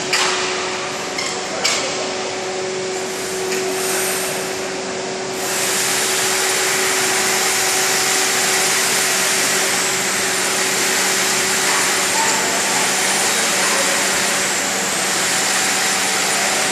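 Machinery on a polyurethane foam injection line. At first there are a few knocks over a steady hum. About five seconds in, a loud, steady rushing hiss starts, with a high whine that dips about every two and a half seconds.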